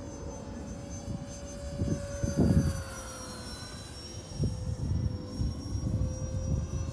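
Twin 64 mm electric ducted fans of a radio-controlled A-10 Thunderbolt II model whining steadily in flight, the pitch dropping slightly about halfway through. Gusts of wind buffet the microphone.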